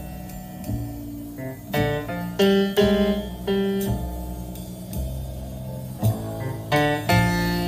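Instrumental music with a run of struck or plucked notes over a bass line, played back through Tannoy HPD 385 dual-concentric loudspeakers.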